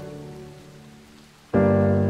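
Background piano music: a held chord fades away, then a new chord is struck about one and a half seconds in and rings on.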